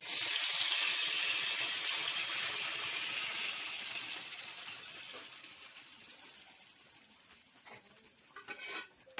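Pressure-cooked beef with its gravy going into hot oil in a kadai, sizzling loudly at once and dying down steadily over several seconds. A few light clicks near the end.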